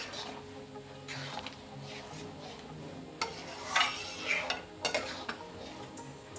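Metal spoon stirring and scraping through thick chili chicken gravy in a steel pan, a few separate scraping strokes with light clicks against the pan, over a low sizzle.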